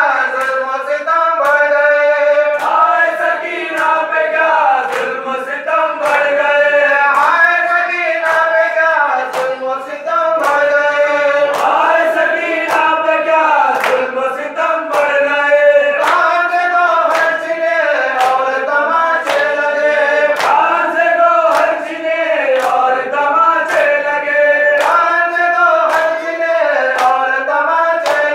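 Group of men chanting a Shia mourning lament (nauha) together, kept in time by a steady beat of open-handed slaps on bare chests (matam), a little under two slaps a second.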